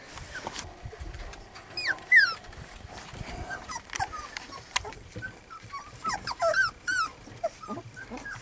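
Young hound puppies whining and yelping: many short, high calls that drop in pitch, several pups at once, the loudest about two seconds in and a burst of calls near the end.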